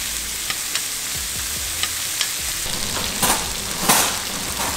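Barracuda fillets sizzling in foaming butter in a nonstick skillet, a steady hiss with scattered pops and crackles. A metal spoon basting the fillets makes two louder scrapes about three and four seconds in.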